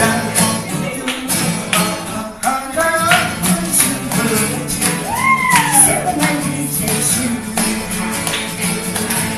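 Small live band playing: acoustic guitars with regular percussive strokes and singing voices. About five seconds in, a note swoops up and then falls away.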